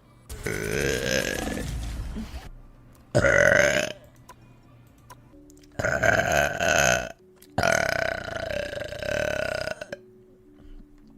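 A woman burping four times in a row: a long belch, a short one, then two more, the last drawn out for about two seconds.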